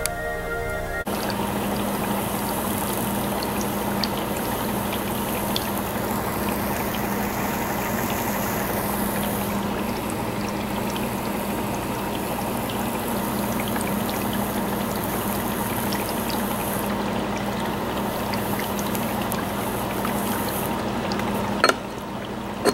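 Small HHO (oxyhydrogen) torch burning with a steady hiss as its flame heats a piece of lava rock red-hot, over a trickling, bubbling sound and a low steady hum. The high hiss drops back about three-quarters of the way through, and a sharp click comes near the end.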